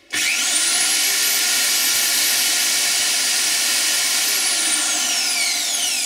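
Corded electric drill, powered from a 12 V-to-220 V inverter, run up to full speed with nothing in the bit. It starts suddenly with a whine that climbs within the first second, holds steady, then winds down from about four seconds in.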